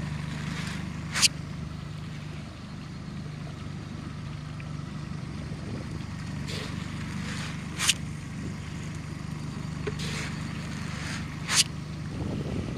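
Steady low hum of a boat's motor, with three short scraping swishes, each ending sharply, as fish-feed pellets are scooped and flung out over the pond.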